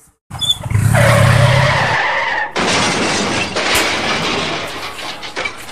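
A vehicle skidding with a tyre screech, cut off about two and a half seconds in by a loud crash with shattering and clattering that slowly dies away: a staged scooter accident.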